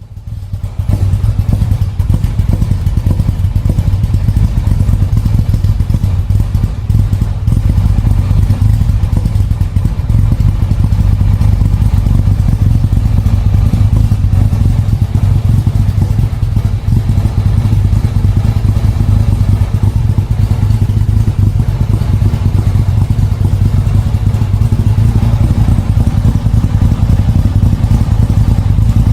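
Engine idling steadily just after a cold morning start, a deep steady drone with a fast clatter running through it.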